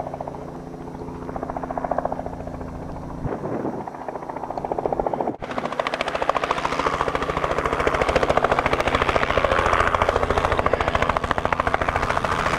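Robinson R44 Clipper II helicopter, its six-cylinder Lycoming piston engine running under the fast, even chop of the two-bladed main rotor. The sound cuts out for an instant about five seconds in, then comes back louder and fuller.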